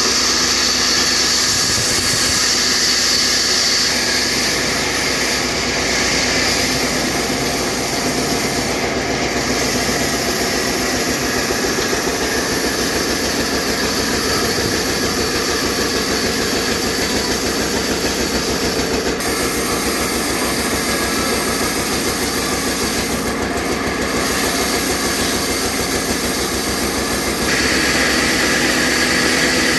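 Horizontal band sawmill running steadily and loudly, a continuous machine noise with a strong high hiss, as it works on a babool log; the hiss brightens near the end.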